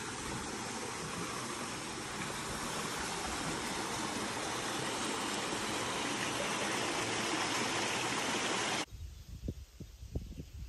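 Stream running over rocks, a steady rushing that grows a little louder, then cuts off suddenly about nine seconds in, leaving quiet with a few low thumps.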